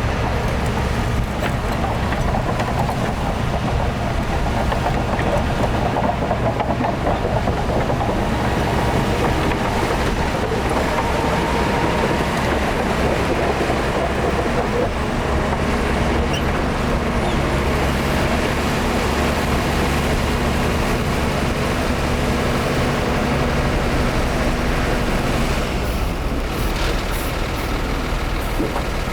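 Heavy diesel earth-moving machinery running steadily: a bulldozer and dump trucks working sand. A few short, sharp sounds come near the end.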